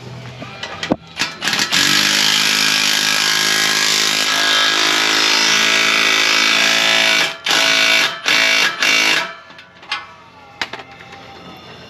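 Impact wrench hammering on the exhaust clamp nuts: one long run of about five seconds, then three short bursts as the nuts are snugged down.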